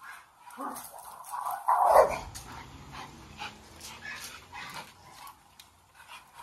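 Bully-breed dogs barking and whimpering during rough play, with a short sound about half a second in and the loudest bark about two seconds in.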